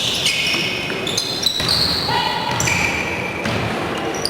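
Basketball shoes squeaking on the court again and again, several short high squeaks overlapping one another, over voices in the background.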